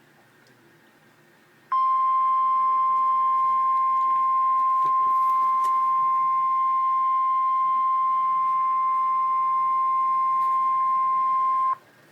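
Emergency alert tone: a single steady, loud electronic tone of about 1 kHz, the NOAA Weather Radio 1050 Hz warning alarm tone that comes before a warning message. It starts abruptly about two seconds in, holds for about ten seconds and cuts off sharply.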